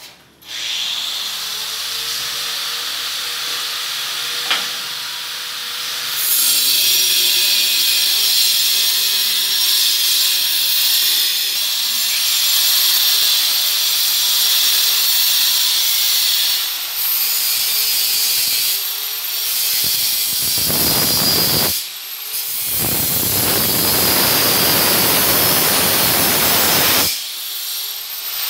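Electric angle grinder running with a steady high hiss. It drops out briefly a few times in the second half.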